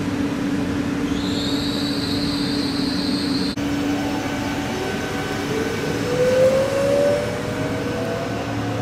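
A train running with a high-pitched wheel squeal that cuts off about three and a half seconds in. Then a Trenitalia Pop electric multiple unit moves along the platform, its traction motors whining and rising in pitch as it picks up speed.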